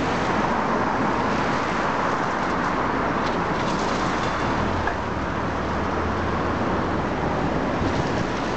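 Demolition excavator running with its hydraulic crusher jaws working on a brick building: a steady, dense machine noise with a few faint crackles a little over three seconds in and a low engine hum coming up about halfway.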